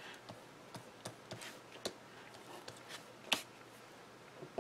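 Quiet handling of cardstock on a cutting mat: scattered light clicks and taps of paper and fingers, with one sharper click a little past three seconds in.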